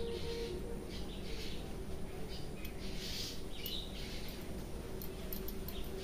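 Hair cracking during a head massage: fingers rubbing and tugging strands of hair at the scalp, making short crackling bursts about once or twice a second over a steady low background noise.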